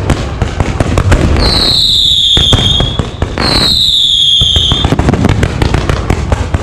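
Fireworks going off in a dense run of sharp crackling reports. Two loud whistling fireworks cut through it, one after the other, each a high whistle lasting over a second and falling slightly in pitch.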